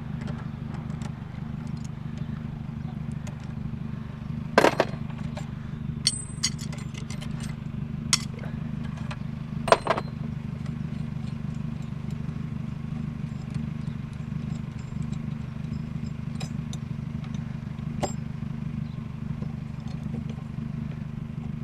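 A handful of sharp metallic clinks and knocks, spread out and irregular, as fittings are worked on a discarded sink to free its brass parts. A steady low hum runs underneath.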